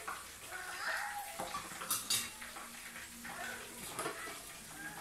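Kitchen utensils and dishes clinking and clattering as they are handled on a counter, with a few sharp clinks, two close together about two seconds in and another near the end.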